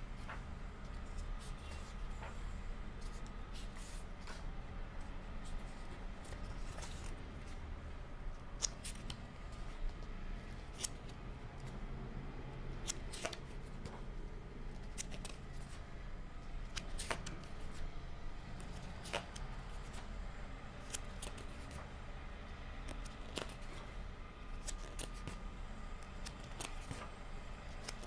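Pages of a thick paperback book turned by hand one after another, a short crisp paper flick about every two seconds, over a low steady hum.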